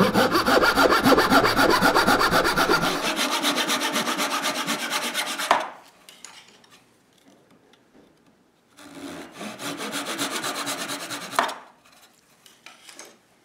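Hand saw cutting through a mahogany board with quick, even rasping strokes, sawing off a rounded corner. There are two runs of sawing, the first about five seconds long and the second shorter, starting near the middle. Each run ends in a short knock.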